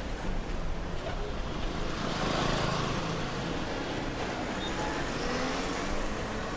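Busy city street ambience: steady road traffic noise with a mix of vehicles, swelling louder for a second or so about two seconds in as traffic passes close.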